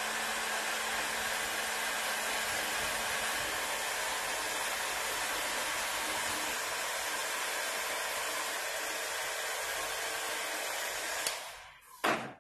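Heat gun blowing hot air steadily, with a low motor hum under the rush of air, flash-drying freshly printed plastisol ink between colour passes. It is switched off about 11 seconds in and winds down, followed by a sharp knock.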